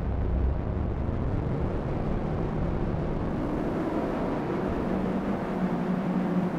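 City street traffic: the steady noise of road vehicles, with one engine's low hum fading away just after the start and another engine's steady hum coming in near the end.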